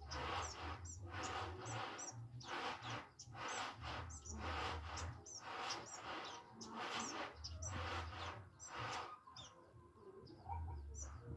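A young kept songbird, a konin, practising its song: a string of short, tentative chirps and calls repeating every second or so, with a brief lull near the end.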